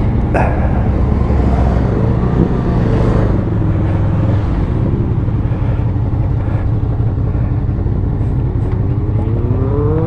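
Honda VFR800F's V4 engine running steadily with a low rumble. Near the end its note rises as the bike revs up and accelerates.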